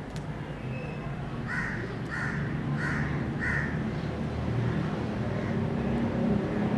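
Four short, raspy animal calls in a quick, even series about half a second apart, over a steady low rumble.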